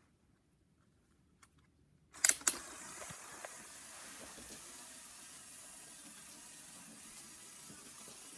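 Near silence, then two sharp clicks about two seconds in. After that a Lego Power Functions L motor and its gear train run with a steady whirring hiss, driving the Technic RC car.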